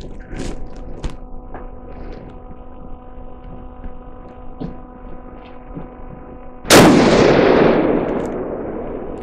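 A single shot from a Magnum Research Mountain Eagle bolt-action rifle chambered in 28 Nosler magnum, about two-thirds of the way in, its report dying away over about two seconds. A steady hum and a few faint clicks come before it.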